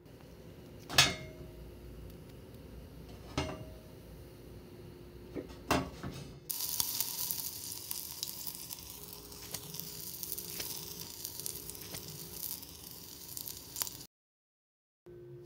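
Three sharp knocks a couple of seconds apart, then a steady frying sizzle, like meat cooking on a hot griddle, that starts about six and a half seconds in and cuts off suddenly near the end.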